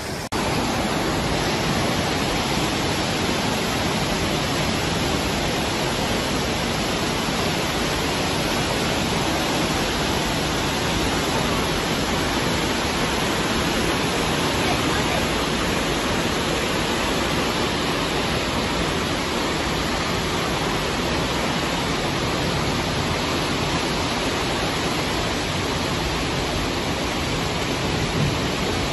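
Flash-flood torrent of muddy water rushing down a street channel: a steady, even rushing noise.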